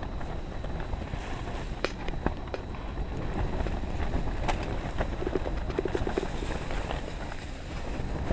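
Strong wind buffeting the tent and rumbling on the microphone, with a few sharp clicks and taps of handling in the vestibule.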